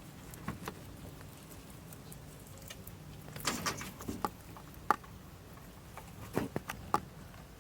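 Rabbits eating: scattered small crunches and clicks of chewing and food being moved, with a busier patch about three and a half seconds in and a few sharper clicks near the end.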